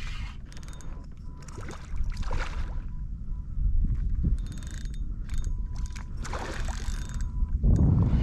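Fishing tackle being handled on a kayak, likely a spinning reel being worked. Irregular mechanical clicking and rubbing comes over a steady low rumble.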